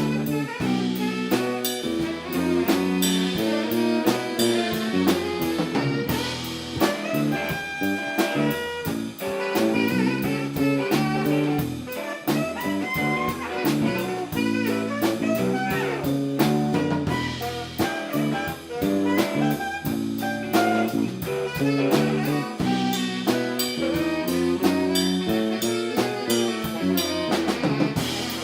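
A live band playing an instrumental jazz-blues passage, a saxophone line over a steady drum kit beat.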